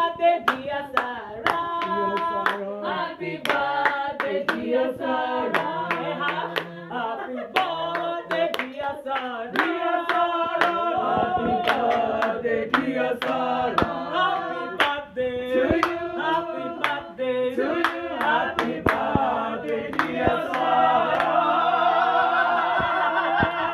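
A group of people singing together in a small room and clapping along in a steady beat, about two to three claps a second; the clapping thins out near the end while the singing goes on.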